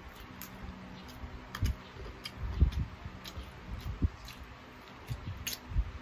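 Close-up eating of sauced chicken feet: chewing and sucking on the skin and small bones, with irregular sharp wet mouth clicks and smacks and a few soft low thumps.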